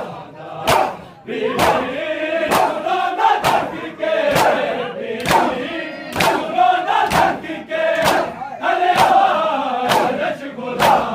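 A crowd of men doing matam, the open palms striking bare chests together in a steady beat about once a second, with massed voices chanting a noha between the strokes.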